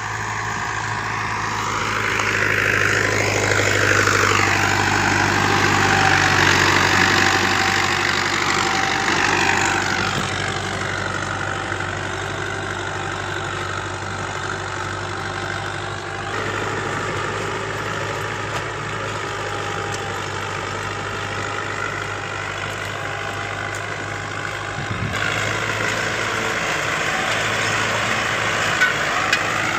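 Fiat 640 tractor's four-cylinder diesel engine running steadily under load as it pulls a disc harrow through dry soil. The engine grows louder about two seconds in and eases back around ten seconds, with two abrupt shifts in the sound later on.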